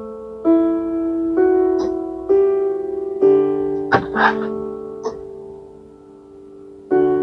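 Soft, slow piano background music, single notes struck about once a second and then a chord near the end. A couple of short clinks sound about four seconds in.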